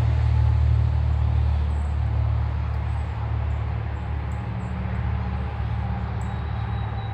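Low, steady engine rumble of a motor vehicle, loudest near the start and slowly easing off.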